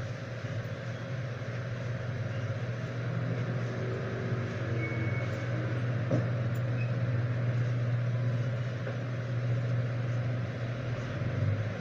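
A steady low mechanical hum that holds level throughout, with one faint click about six seconds in.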